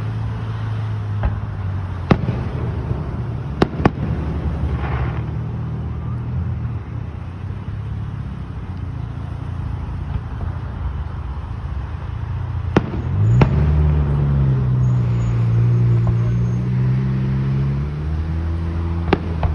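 Fireworks going off: a handful of sharp bangs spread unevenly, with a pair close together a few seconds in and the loudest about thirteen seconds in. A low steady hum runs underneath and rises in pitch about thirteen seconds in.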